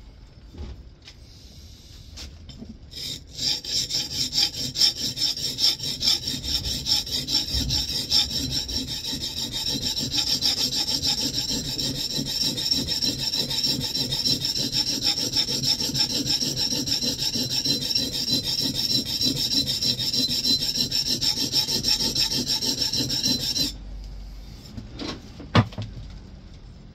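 Steel scrub plane iron being rubbed back and forth on an oilstone to hone its cambered bevel: fast, steady rubbing strokes that start about three seconds in and stop abruptly some twenty seconds later. A single sharp knock follows near the end.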